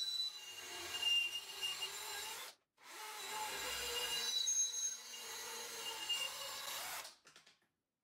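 Homemade drill-driven bandsaw cutting through a rectangular steel tube, powered by a DeWalt cordless drill: a steady noisy cutting sound with thin high tones over it, the footage sped up four times. It breaks off for a moment about two and a half seconds in, then runs on until it stops just after seven seconds with a few clicks.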